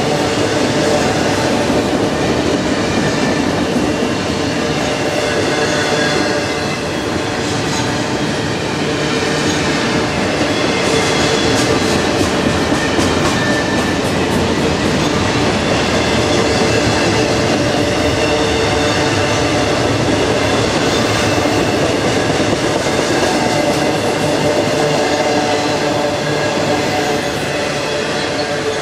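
Freight cars of a CSX train rolling past on steel wheels, with a steady rumble, clicking over rail joints, and faint high steel-wheel squeal on the curve.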